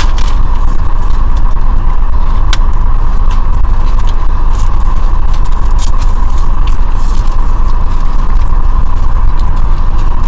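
Steady loud low rumble of a car cabin with a constant hum, over which come scattered sharp clicks and crackles.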